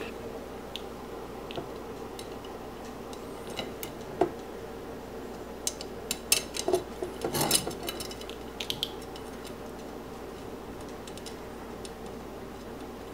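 Scattered light metallic clicks and taps of wire spokes and spoke nipples knocking against the rim and hub as a bicycle wheel is laced by hand, most of them bunched about six to eight seconds in.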